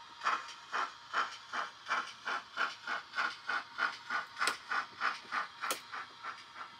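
Sound-fitted model steam locomotive's speaker chuffing in a steady beat that quickens to about three or four chuffs a second, then eases slightly. Two sharp clicks cut through in the second half.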